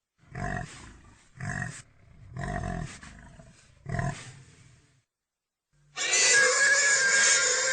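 Pig grunting four times in short low bursts, then, after a pause, letting out a long loud squeal.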